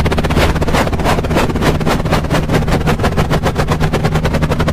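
Small electric motor of a cardboard toy helicopter running, with a fast, even clatter of about ten clicks a second over a steady low hum.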